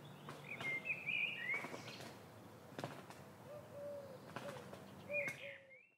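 Faint woodland birdsong: a small bird's short chirping calls, and in the second half a low cooing from a dove or pigeon, with a few light clicks. It cuts off just before the end.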